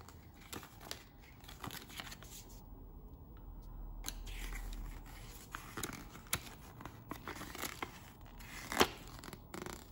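Faint paper rustling and crinkling as a small instruction booklet and card are handled and unfolded out of a cardboard box, with scattered light paper snaps; the sharpest one comes near the end.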